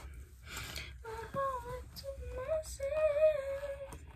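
A woman's voice singing a few held, bending notes without clear words, with short crinkles and clicks of packaging being handled about half a second in.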